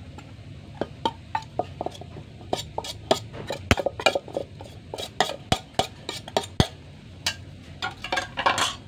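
Irregular clinks and taps on a ceramic plate and clay mortar as fried mackerel flakes are scraped off the plate into the mortar. A longer scraping burst comes near the end.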